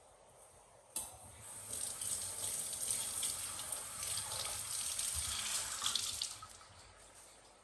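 Kitchen tap turned on with a click about a second in, water running into the sink for about five seconds, then stopping.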